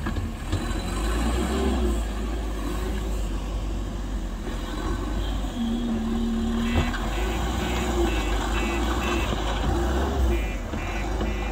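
JCB telehandler's diesel engine running with a steady low rumble as the loader works, its reversing alarm beeping about twice a second from about halfway through and again near the end.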